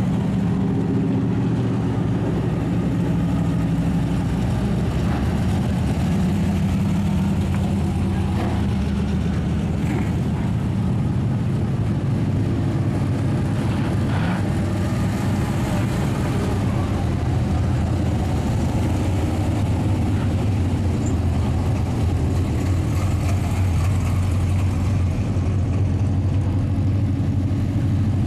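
Race car engines running at low revs as dirt modified race cars and a stock car drive slowly past one after another, a steady deep engine note with no hard revving.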